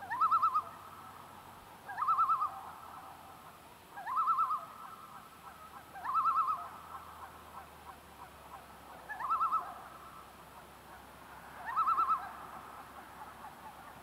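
Common loon tremolo: six short, rapidly quavering laughing calls, each about half a second long, coming about every two seconds with a slightly longer pause before the fifth. The tremolo is the call loons give when alarmed or defending territory.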